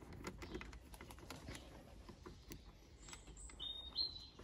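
Faint clicks and scrapes of a hand screwdriver working the screws out of the plastic front panel above a car's grille. A few short high chirps from a bird come near the end.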